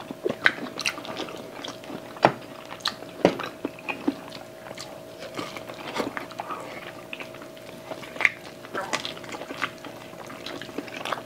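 Close-miked eating: biting into and chewing pieces of braised chicken adobo and pork rib meat off the bone by hand, with many scattered sharp clicks of mouth and teeth. A faint steady hum runs underneath.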